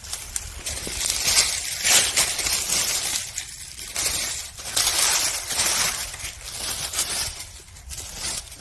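Dry leaves and brush rustling and crackling in irregular surges.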